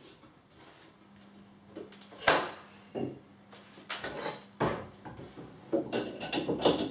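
Knocks and clatters of wood and metal as a wooden workbench jig and its clamps are handled and adjusted. One sharp knock a little over two seconds in is the loudest, with a few more after it and a quick run of clatters near the end.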